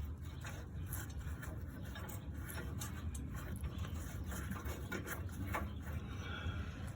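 Faint scraping and light knocks of metal exhaust parts being handled and test-fitted under a car, over a steady low hum.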